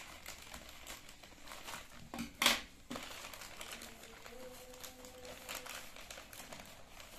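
Plastic courier mailer bag crinkling as it is cut open with scissors and pulled apart by hand, with one much louder crackle about two and a half seconds in.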